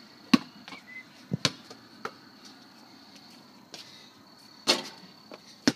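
A basketball bouncing on pavement: about six sharp thuds at uneven intervals, the loudest about a third of a second in, over a faint steady high tone.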